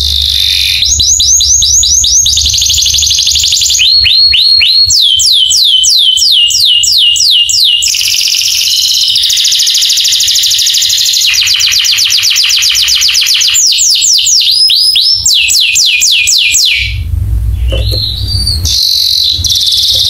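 Domestic canary singing a long, loud song of rapidly repeated phrases: runs of falling whistles, about seven a second, alternating with dense buzzy trills, the phrase changing every one to three seconds.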